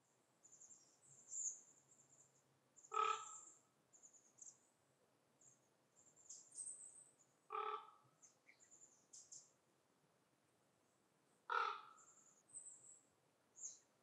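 Forest birdsong: a large bird calls three loud caws about four seconds apart, over thin, high-pitched chirping from small birds.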